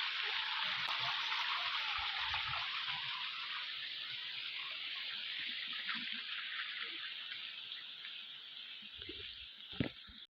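River water rushing, a steady hiss that slowly grows fainter toward the end, with a few soft low thumps; it cuts off abruptly at the end.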